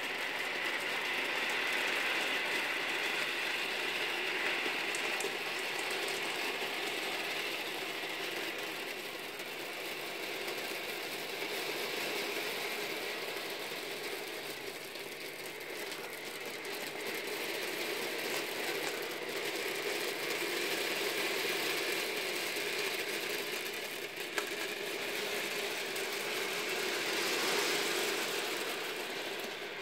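Nearly 3000 small steel ball bearings, 8 mm across, rolling and clattering against each other on a shaken, tilted board: a continuous dense rattle of countless tiny clicks that swells and eases.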